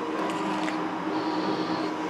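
Metal shaper running and cutting a steel vise jaw: a steady machine hum, with a high scraping note from the tool that comes in during the second half.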